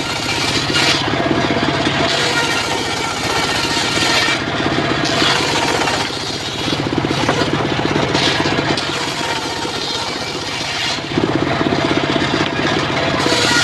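Engine-driven mobile circular sawmill running steadily, its blade ripping through a log. The high cutting noise swells and eases every few seconds.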